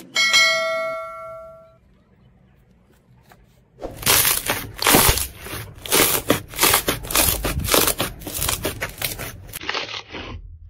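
A bright bell-like ding rings out and fades at the start. About four seconds in, hands begin squeezing and pressing clear glitter slime, making a rapid, dense run of crackling pops that lasts to the end.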